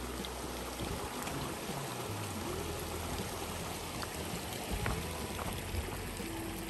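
Shallow creek water running and trickling over stones, a steady even wash.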